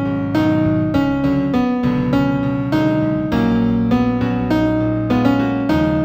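New-age piano music in F major: a steady run of single struck notes over sustained lower notes, about two new notes a second.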